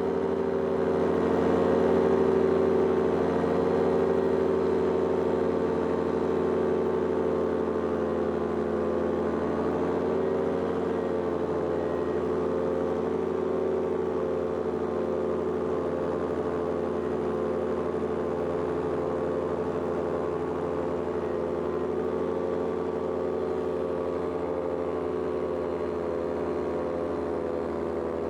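Powered paraglider's engine and propeller running steadily at cruising power, with a slight wavering in pitch about ten seconds in.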